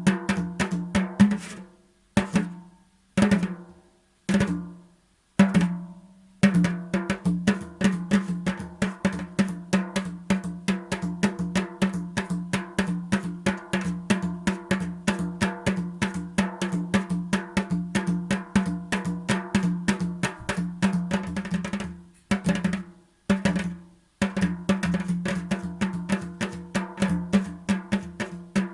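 Drumming on a single pitched drum. A few single strokes ring out and die away, then a fast, steady run of strokes goes on, breaks off for a couple of seconds, and starts again.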